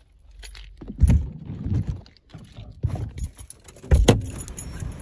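Bumps, clicks and rustling of things being handled inside a car, with two heavy thumps, one about a second in and one near four seconds in.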